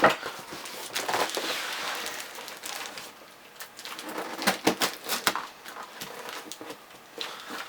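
Cardboard box being opened by hand: cardboard scraping, crackling and rustling, with a sharp knock at the start and a quick run of clicks and knocks about four and a half seconds in.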